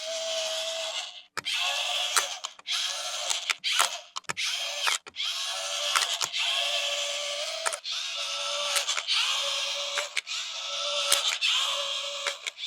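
A toy RC vehicle's small electric motor and plastic gearbox whirring in short runs of about a second each, with clicks between the runs.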